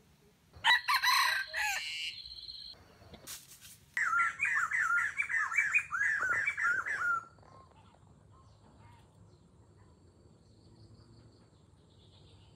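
A red junglefowl rooster crows once, a short crow that cuts off abruptly, followed by a sharp click. Then comes a rapid run of chirping bird calls, about three notes a second, lasting about three seconds before it falls quiet.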